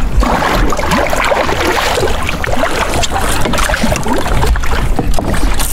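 Water splashing and sloshing around plastic fishing kayaks, with knocks and handling noise, while a hooked wels catfish is fought on a spinning rod.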